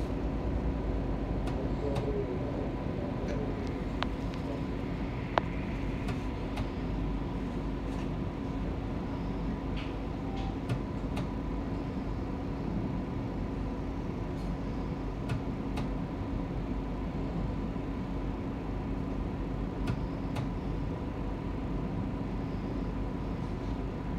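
Alstom Citadis Dualis tram-train running at a steady pace between stops: continuous rumble of wheels on rail with a steady hum, broken by a few sharp clicks, the loudest about five seconds in.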